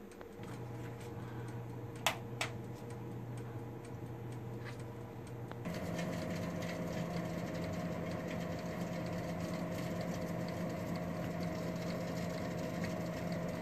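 Cuisinart air fryer toaster oven running on air fry, its fan giving a steady hum with a couple of faint clicks about two seconds in. Partway through the hum steps up and changes pitch, then holds steady.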